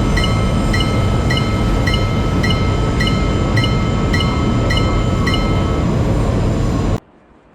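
Japanese railroad-crossing warning bell ringing about twice a second over the steady rumble of a passing train. The bell stops near the end, and the train sound cuts off abruptly about a second later.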